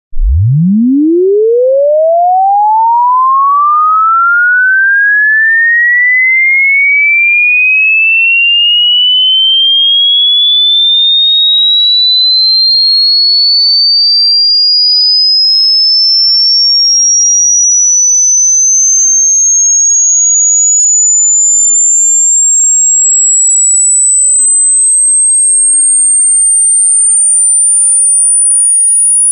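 A single pure electronic sine tone at constant loudness, sweeping upward in pitch without a break. It starts as a deep hum, climbs quickly through the low and middle range in the first few seconds, then rises more slowly to a thin, very high whine. This is a hearing-test frequency sweep for finding the highest pitch a listener can hear.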